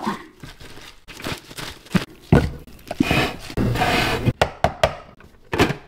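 Salad tongs tossing leafy greens in a plastic salad spinner bowl: scattered clicks and leafy rustling, then a scoop of greens lifted and dropped into a plastic container.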